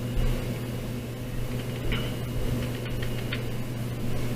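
Steady low mechanical hum with a few faint keyboard key clicks as a command is backspaced and retyped.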